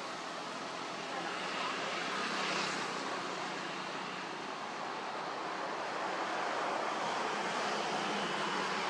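Steady outdoor background hiss with no distinct events standing out.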